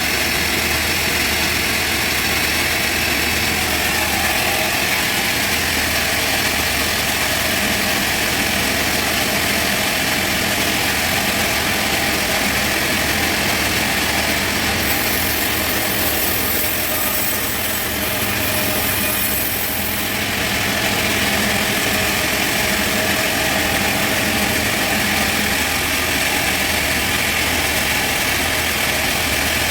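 Sawmill machinery running steadily while sawing a trembesi (rain tree) log, with a high hiss rising for several seconds around the middle.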